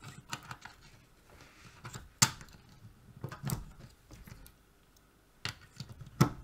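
AA batteries being pushed into the clear plastic battery holder of an RS41 radiosonde: a series of sharp plastic clicks and taps, the loudest about two seconds in and just before the end.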